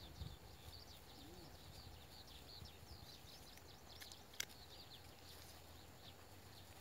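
Faint, near-quiet outdoor ambience with small birds chirping over and over, high and thin. One sharp click comes a little past four seconds in.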